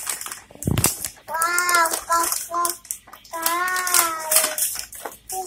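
A young child singing two drawn-out phrases in a high voice, with a sharp thump near the start and crinkling and knocking from toy packaging being handled.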